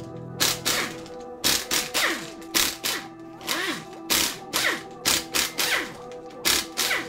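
Background music with a quick, steady percussive beat.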